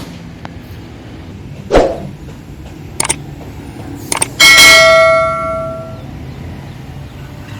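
A few short knocks, then a loud metallic clang about four and a half seconds in that rings with several tones and fades out over a second and a half.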